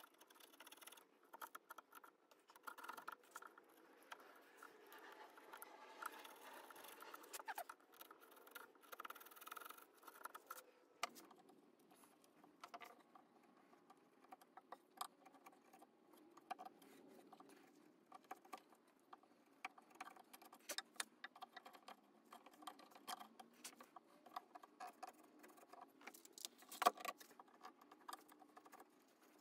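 Bench chisel paring the ends of oak wedges and an ash tenon flush by hand: faint scraping cuts with many small clicks as the blade takes off slivers, and one sharper click near the end.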